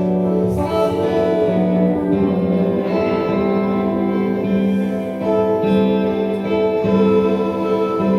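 Instrumental music: layered sustained notes over a low note that is re-struck roughly once a second, with no singing.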